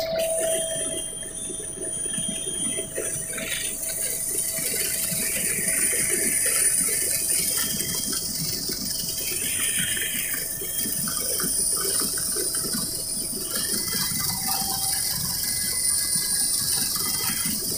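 Helicopter cabin noise in flight: a steady mechanical drone of rotor and gearbox with a constant high turbine whine.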